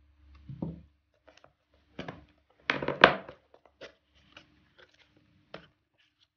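Cardboard retail box being opened by hand: an irregular run of scrapes and clicks from the flaps and inner packaging, loudest about three seconds in.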